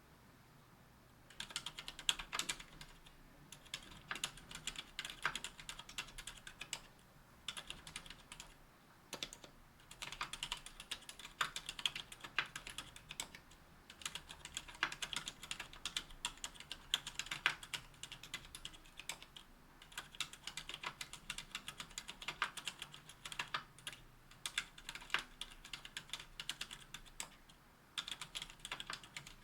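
Typing on a KBDfans Tofu 60% aluminium keyboard with stock Cherry MX Silent Red linear switches and GMK keycaps. The keystrokes come in quick runs starting about a second and a half in, broken by short pauses.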